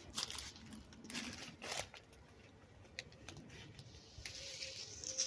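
A few short crunching, rustling noises near the start and a second in, then two sharp clicks and a faint high hiss near the end.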